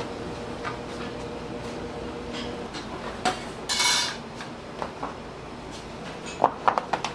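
Dishes and utensils clinking and knocking in a kitchen as food is plated, with a short hissing rush about four seconds in and a quick run of sharp clinks near the end.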